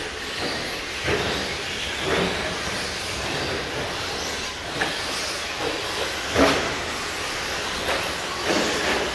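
Radio-controlled short course trucks racing: a steady whir and hiss of the motors and drivetrains, with several short louder surges or knocks. The loudest comes about six and a half seconds in.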